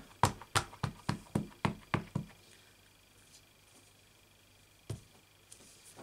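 A stamp mounted on a clear acrylic block tapped down quickly onto an ink pad, about eight sharp knocks in two seconds, inking it up. One more knock comes about five seconds in.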